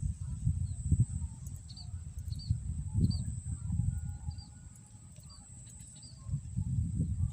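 Small birds chirping in short repeated calls over a steady high-pitched drone, with irregular loud low rumbles of wind or handling on the microphone.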